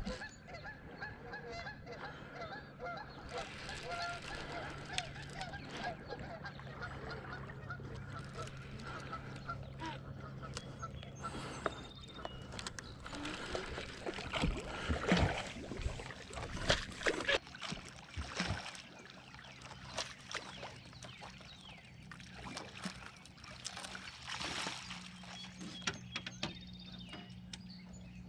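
Geese honking repeatedly across the water over a low steady motor hum. Between about 14 and 19 seconds in come a cluster of knocks and splashes as a hooked catfish is brought to the net beside the boat.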